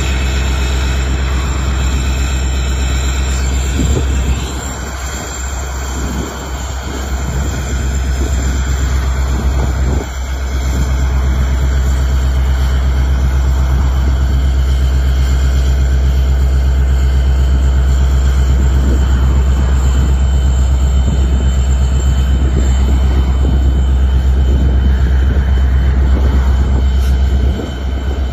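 Norfolk Southern EMD SD70ACe diesel-electric locomotive running past slowly, its engine giving a steady low drone with a hum of higher tones over it, which dips briefly a few times.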